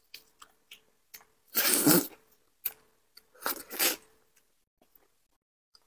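Close-miked eating sounds from a piece of fish in red chili sauce, handled with plastic-gloved hands, pulled apart and bitten: a few small wet clicks in the first second, a louder wet burst a little under two seconds in, and another from about three and a half to four seconds in.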